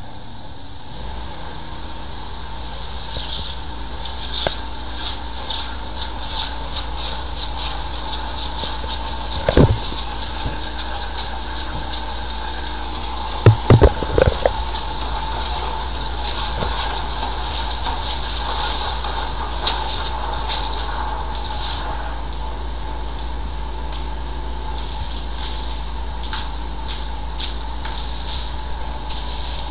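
High-pressure sewer jetter at work in a drain pipe: water hissing and spraying from the nozzle as the hose is fed in, over a steady high whine and a low hum. A few sharp knocks come about a third of the way in and again around the middle.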